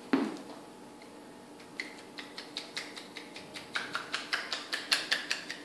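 A short thump right at the start, then from about two seconds in a quick run of light, sharp clicks or taps, about five a second, growing louder toward the end.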